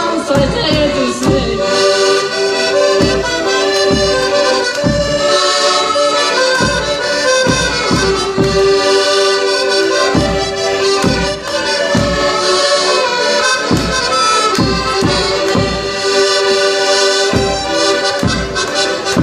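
Several accordions playing an instrumental tune together in held chords, with a drum keeping a steady beat underneath.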